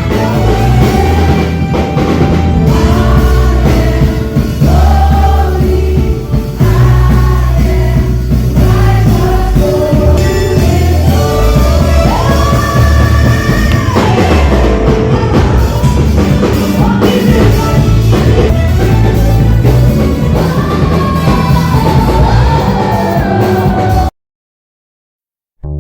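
Background pop song with a sung vocal line over heavy bass and drums. It cuts off abruptly about a second and a half before the end, leaving a brief silence before different music with a keyboard begins.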